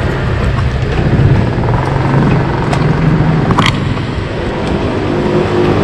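Motor vehicle engine running steadily in street traffic, a low continuous rumble, with a brief sharp clatter about three and a half seconds in.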